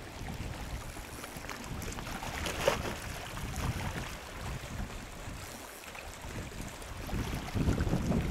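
Wind buffeting the microphone in uneven gusts, a low rumble that rises and falls and grows stronger near the end. A short sharp knock comes about two and a half seconds in.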